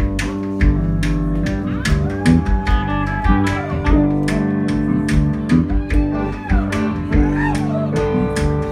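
Live Tuareg desert blues band playing: electric and acoustic guitars over bass and a steady drum beat, with a voice singing rising and falling phrases twice in the middle.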